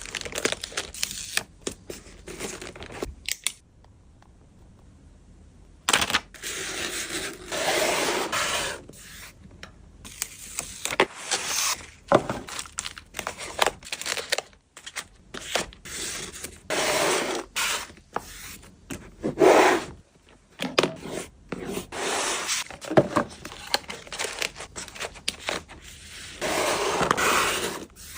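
Photocard packing sounds: plastic sleeves and packing material handled, crinkling and scraping in irregular bursts with small taps and clicks. There is a quiet pause a few seconds in.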